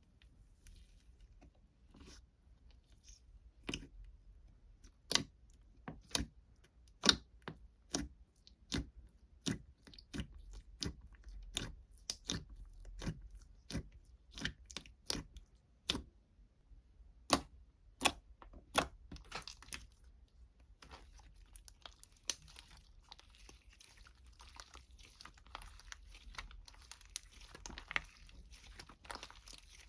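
Crunchy food being bitten and chewed: sharp, irregular cracks about one or two a second. After about 19 seconds they give way to a steady crinkling rustle.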